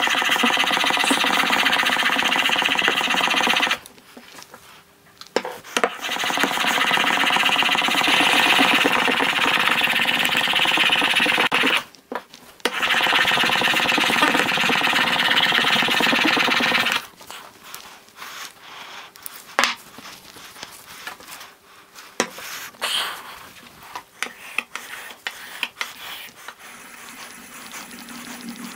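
Wood chisel held in a honing guide, worked back and forth on a 3000-grit Japanese water stone to hone a secondary bevel: a gritty scraping in three long bouts, with short breaks about four and twelve seconds in. Over the last ten seconds come only lighter scattered strokes and clicks.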